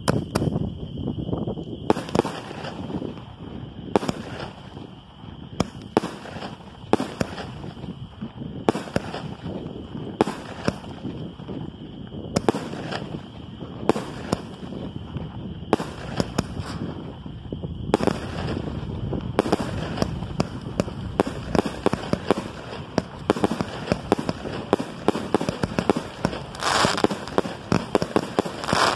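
19-shot consumer firework cake firing a string of shots: a thump from each tube and a bang overhead, about once a second at first and faster later, with crackling stars. A dense burst of crackle comes near the end.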